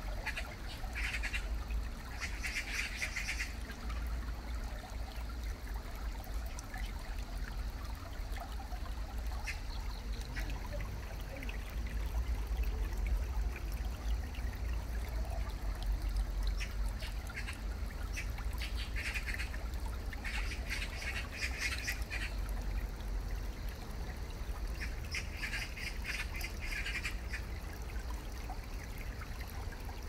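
A shallow pebbly stream trickling steadily, with a steady low rumble underneath. A bird calls over it in several bouts of rapid chattering: near the start, around two-thirds of the way through, and again near the end.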